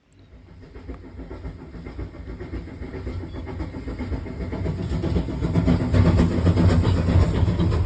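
Steam train running on the rails, its heavy rumble and rapid clatter growing steadily louder.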